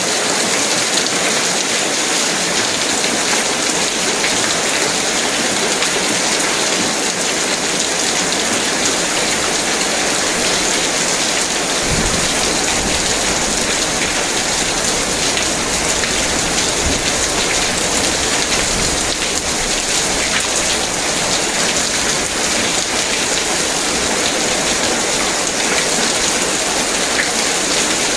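Heavy rain falling steadily, a dense, unbroken hiss of drops on surfaces. A low rumble joins underneath about twelve seconds in.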